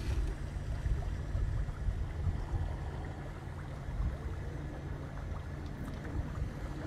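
A pontoon boat's motor running steadily underway: a low, even hum with a haze of water and air noise.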